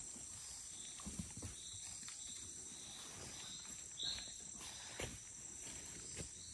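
Forest ambience: a steady high insect buzz with a short high chirp repeating about once a second, loudest about four seconds in. Scattered crunches of footsteps in dry leaf litter sound through it.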